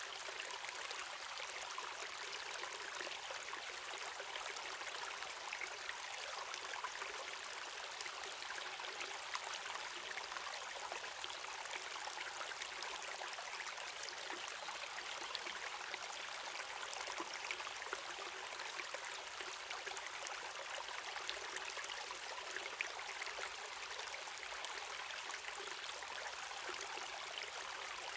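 Running water of a river and waterfall: a steady, even rush with fine splashing through it and no deep rumble.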